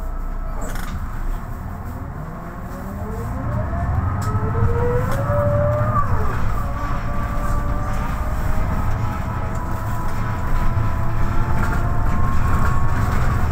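MAN NL263 city bus pulling away and accelerating, heard from inside the cabin. A drivetrain whine climbs in pitch as the engine note grows louder, drops back about six seconds in at a gear change, and then settles into a steady whine as the bus cruises.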